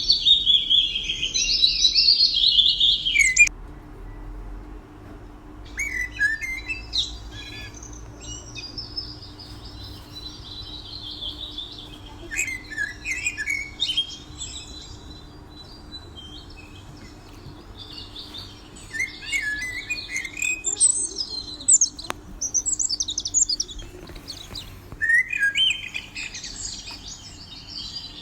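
Small songbirds chirping and trilling in quick, high phrases. The song is loud for the first few seconds, then drops abruptly and goes on softer, in scattered bursts with short pauses.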